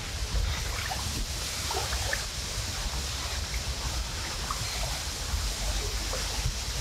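Strong wind buffeting the microphone, a steady low rumble, over the wash of small waves lapping at the water's edge.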